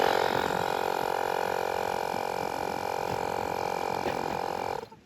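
Electric air compressor running steadily as it pumps a ball to its 5 PSI setting, then cutting off abruptly near the end; the ball holds and does not burst.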